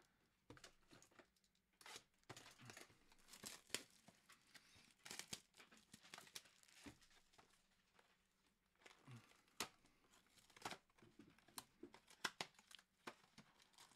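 Cellophane shrink-wrap being torn and crinkled off a trading card box, then the box's cardboard top being torn open: quiet, irregular crackles and short rips.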